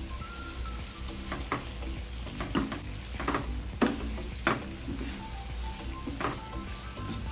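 Cuttlefish and prawns sizzling in a nonstick pan while a wooden spatula stirs them, scraping and knocking the pan in about seven irregular strokes.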